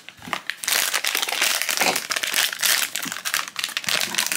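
Foil blind-box pouch crinkling continuously as hands turn and squeeze it.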